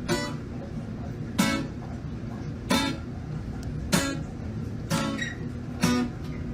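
Guitar music: strummed chords, one stroke about every second and a quarter, ringing out over a steady low backing.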